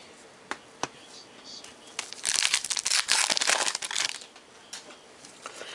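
A baseball card pack's wrapper crinkling and tearing as it is ripped open, a burst of crackling about two seconds long, after a couple of light clicks.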